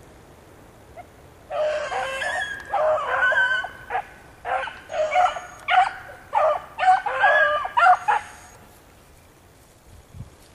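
A pack of dogs barking and yelping excitedly as they run, about a dozen sharp, pitch-bending calls in quick succession that stop about two seconds before the end.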